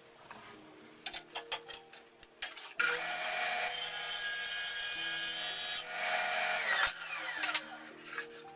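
Power saw cutting phenolic-resin plywood for about four seconds, starting abruptly after a few clicks and knocks. The blade then winds down with a falling whine.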